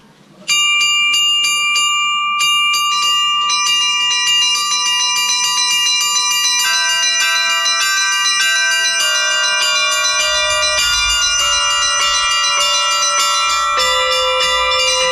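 Russian Orthodox bell ringing on a set of tuned bells cast in 1999. It starts suddenly about half a second in with quick, regular strikes on the small high bells, and lower bells join one after another, building into a full peal.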